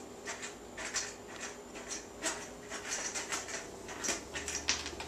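A cat chewing and scuffling with a toy on a carpeted floor: a run of soft, irregular clicks and rustles.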